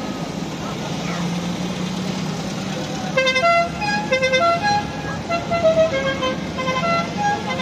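Air-cooled VW Beetle engines running as the cars pass by. About three seconds in, a musical car horn starts playing a quick tune of short notes at changing pitches, which carries on until near the end.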